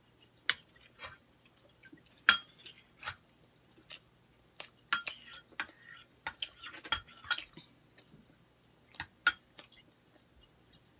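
A metal spoon clinking and scraping against a plate in irregular sharp taps, the loudest about half a second in, after two seconds and after nine seconds, with mouth sounds of chewing bread between them.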